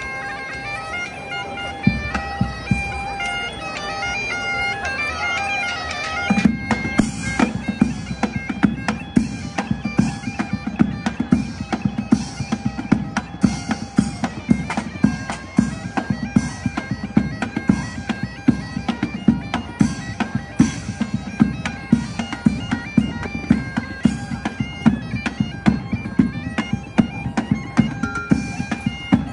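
Bagpipe playing a melody over a steady drone, joined about six seconds in by a group of drums beating a steady dance rhythm.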